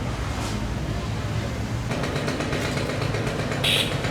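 Street traffic: a motor vehicle's engine running with a steady low rumble, growing busier and more rattly about two seconds in, with a short hiss near the end.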